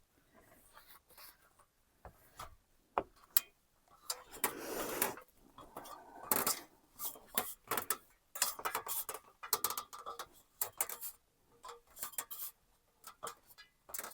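Irregular light clicks, knocks and rubbing of small hard objects being handled, with a longer scraping or rustling stretch about four seconds in.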